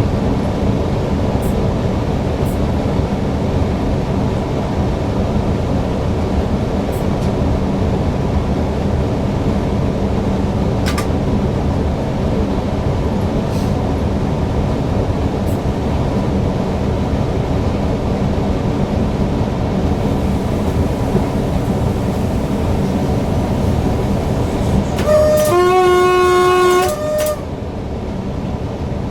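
Newag Impuls EN63 electric multiple unit running along the track with steady running and rail noise. About 25 seconds in, the train horn sounds for about two seconds: a short high note, a longer lower note, then the high note again.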